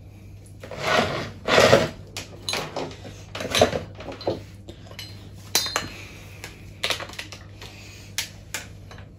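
Kitchen equipment being handled and set down on an electric cooker hob: a small mechanical kitchen scale and an electric hand whisk with metal beaters, making a string of knocks, rattles and clinks. The loudest clatter comes about a second in and again at about three and a half seconds, followed by sharper single clicks.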